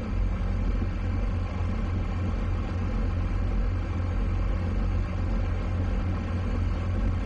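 A small twin-engine towboat's engines running steadily, a low rumble heard from inside its wheelhouse.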